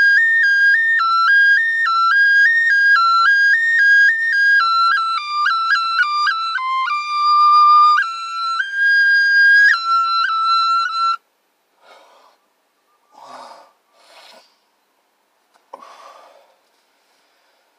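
Small flute playing a melody of short stepped notes, first rocking between two pitches and then wandering lower, before stopping abruptly about two-thirds of the way through. A few short breathy sounds follow.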